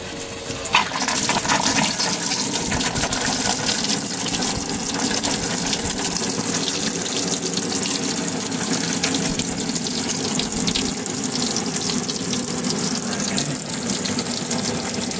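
Live-well pump spraying jets of water from a perforated spray bar into an empty boat live well, a steady splashing gush that starts about a second in. The pump is working.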